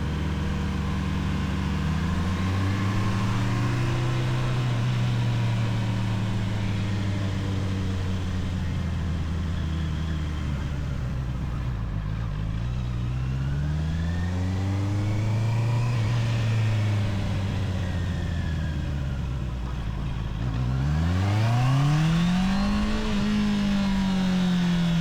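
Honda CBR650R inline-four engine on its stock exhaust, rising in revs from low about two seconds in, holding, then easing off. It pulls up again about thirteen seconds in and drops back. A quicker, higher rev rise comes about twenty-one seconds in before it eases off again.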